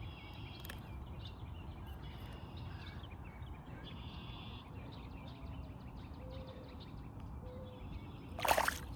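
Birds chirping and trilling over a steady low rumble, with a brief loud noise about eight and a half seconds in.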